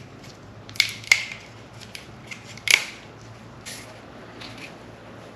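Small screwdriver prying at the Volvo 240 door's window-scraper channel, metal clicking and scraping against the trim: a few sharp clicks, the loudest about a second in and near three seconds, with softer ones later.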